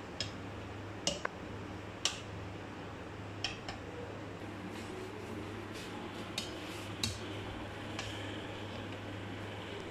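A metal serving spoon clinking and scraping against a cooking pot as cooked rice is scooped out and served onto a platter: short light clinks about once a second, over a low steady hum.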